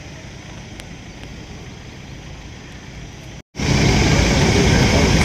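Steady vehicle noise: a low rumble with hiss. It drops out for a moment about three and a half seconds in and comes back much louder.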